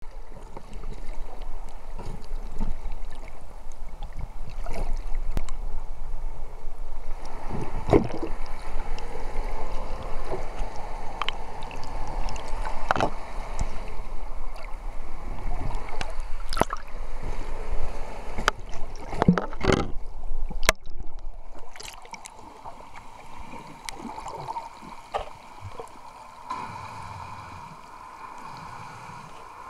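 Underwater water noise picked up through a camera housing: gurgling and rushing with scattered sharp clicks and knocks and a low hum. It turns noticeably quieter about two-thirds of the way through.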